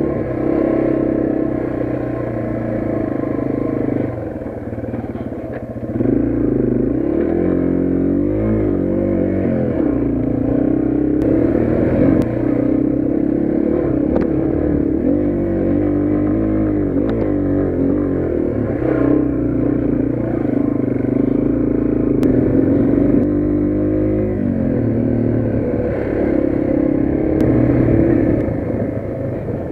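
Yamaha TW200's single-cylinder four-stroke engine running under way, its pitch rising and falling with the throttle. It eases off briefly about four seconds in, then pulls again. A few light clicks and knocks come through.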